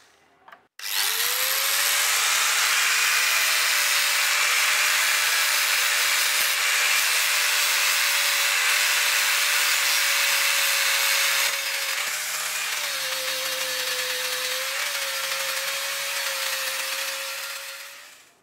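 Angle grinder fitted with a sanding disc, spinning up about a second in and running steadily with a broad hiss as it sands a wooden knife handle. Its motor note dips briefly twice as it is pressed into the wood, and the sound fades out near the end.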